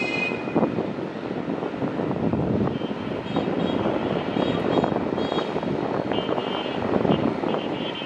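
Turboprop engines of a Bombardier Dash 8 Q400 (Pratt & Whitney PW150A) and their propellers running steadily as the airliner moves along the runway. A high turbine whine comes in about three seconds in and grows stronger in the second half.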